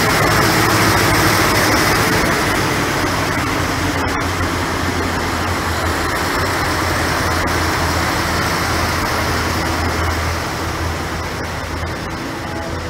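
V/Line Sprinter diesel railcars moving out along the platform, their diesel engines running with a steady low hum over wheel and rail rumble. The sound eases off gradually in the last few seconds as the train draws away.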